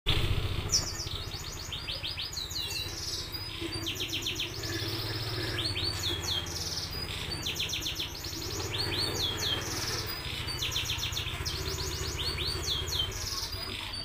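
Domestic canary singing a long unbroken song: rapid trills alternating with slurred, down-sweeping whistled notes. A steady low hum runs underneath.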